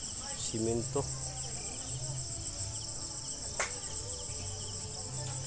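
Chorus of insects, crickets by the sound, making a steady, high-pitched, rapidly pulsing trill. A short falling whistle cuts through a little past halfway.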